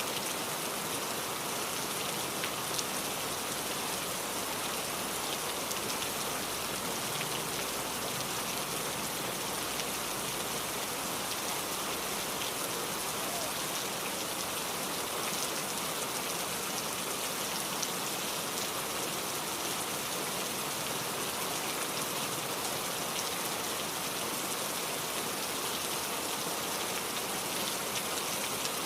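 Heavy rain falling steadily: a dense, even hiss of rain with scattered drop ticks.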